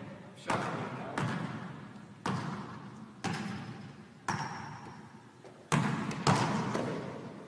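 A basketball thudding in a gym: seven sharp hits, mostly about a second apart, with two close together near the end. Each hit rings out in a long hall echo.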